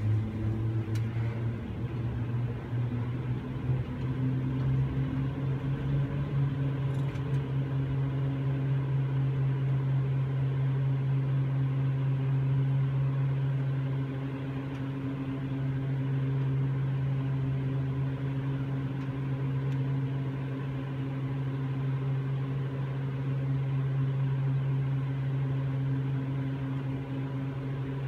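Steady low mechanical hum of aerial ropeway machinery running while a car travels down the line. The hum steps up slightly in pitch a few seconds in, then holds steady.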